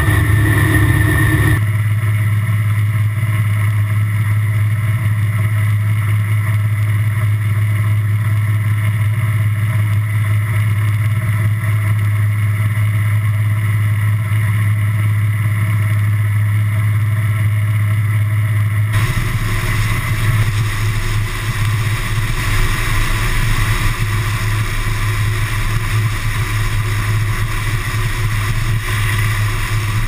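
Combine harvester running steadily through a corn field, a loud constant low drone. The sound shifts abruptly twice, about two seconds in and again a little past halfway, then holds steady each time.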